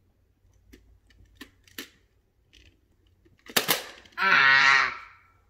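Magna-Tiles, plastic magnetic building tiles, clicking against each other as they are set on a tower: a few soft clicks, then a sharper cluster of snaps about three and a half seconds in. Just after, a short wordless vocal sound, like a hum, is the loudest thing.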